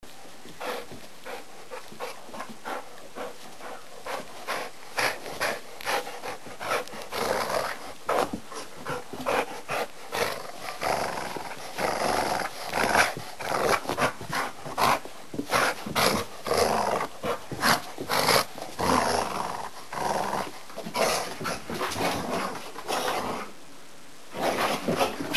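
A dog play-growling and grunting in short, irregular bursts, busier through the middle stretch.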